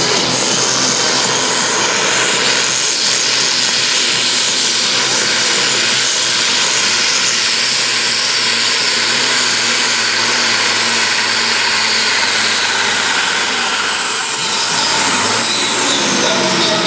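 Deutz diesel tractor engine at full throttle, revved to about 2700 rpm, pulling a weighted sled down a tractor-pulling track. It runs loud and steady with a high whine on top, and the engine note sags about two seconds before the end as the load takes over.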